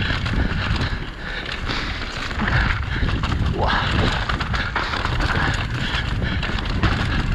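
Mountain bike riding fast down a dirt forest singletrack: the tyres rumble over the ground, the bike clatters over bumps and roots, and wind buffets the microphone.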